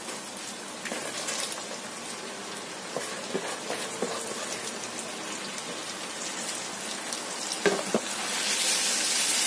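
Frying sizzle in a wok as handfuls of shredded cabbage go into the hot sauce, with a few short knocks of the spatula against the pan. The sizzle grows louder near the end as the cabbage is stirred.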